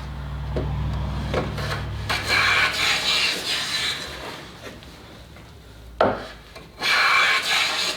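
Luban bench hand plane cutting shavings off a board in long rasping strokes, one after another, with a sharp knock about six seconds in.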